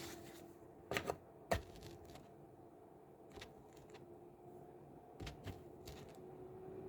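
A few sharp clicks and taps of small objects being handled and set down: a pair about a second in, a louder one just after, and two more about five seconds in, over a faint steady hum.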